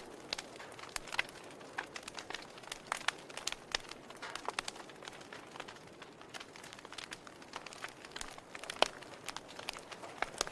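Wood fire burning in a fireplace, the firewood crackling with irregular sharp pops over a soft hiss; one louder pop about nine seconds in.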